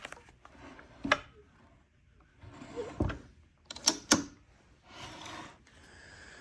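Handling noises from a Homelite Super XL chainsaw being turned and moved: scattered clicks and knocks, with two sharp clicks close together about four seconds in and short rustles between them.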